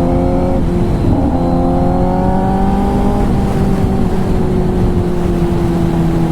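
Kawasaki ZX-10R inline-four engine through an SC-Project titanium exhaust, under way on the road. The pitch climbs, dips briefly about half a second in, pulls up until about three seconds, then slowly falls as the throttle eases.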